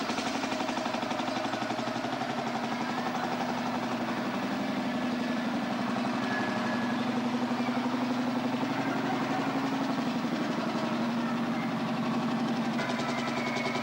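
Farm tractor engine running steadily at idle, with an even pulsing note.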